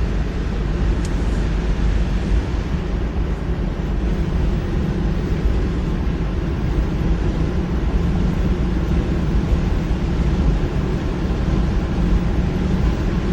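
Steady road and engine noise heard from inside a moving car's cabin: a low, even rumble that barely changes.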